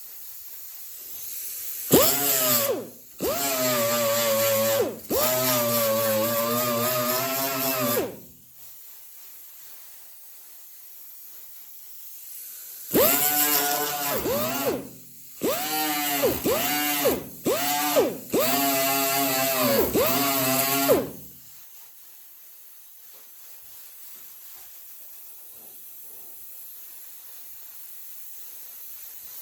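A handheld power tool run in a series of short trigger bursts, in two clusters with a quieter gap between. In each burst the motor's whine rises as it spins up and sinks as it winds down, with a hiss over it.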